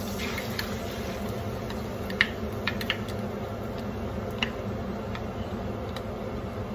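Blended tomato and onion paste frying in hot oil in a pan: a steady low hiss with scattered sharp pops and crackles, over a steady background hum.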